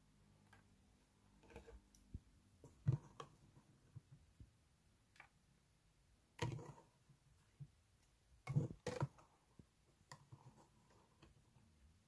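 Clear plastic containers being handled and set down on a table: scattered light clicks and knocks, the loudest a little past the middle and a close pair about three-quarters through.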